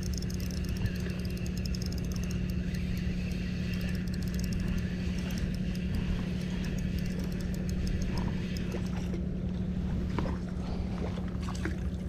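A running engine with a steady low hum and rumble. Faint clicks come over it early, and a few small knocks come in the last few seconds.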